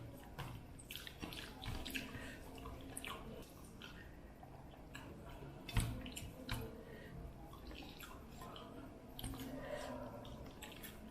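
Soft, wet eating sounds: chewing and squishing of rice and curry, with scattered small clicks. There is one sharper knock about six seconds in.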